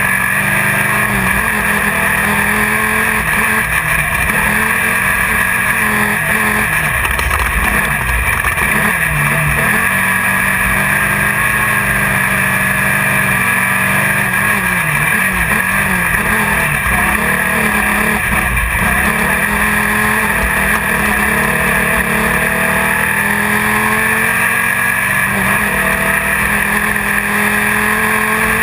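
Class 1600 desert race buggy's air-cooled Volkswagen 1600 engine heard from inside the car at racing speed, its revs rising and falling again and again, over a steady rushing noise.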